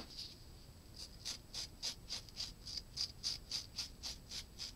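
Knife blade cutting the hair off deer tarsal glands in quick, even strokes, about three to four a second, starting about a second in.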